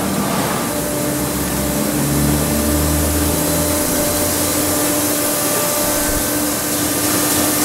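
A machine running steadily: an even whooshing hiss over a low, steady hum.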